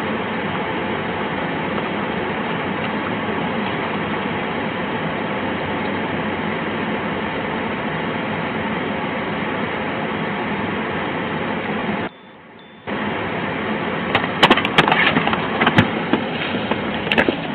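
Steady rushing noise inside a running police SUV's cabin: the engine idling and the climate fan blowing. It cuts out for under a second about twelve seconds in. Near the end come several sharp knocks and clatters from movement inside the vehicle.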